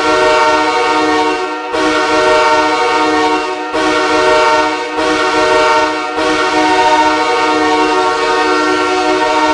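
Ice hockey goal horn signalling a goal: a loud, multi-tone horn chord blown in five blasts with brief breaks between them, the last held longest.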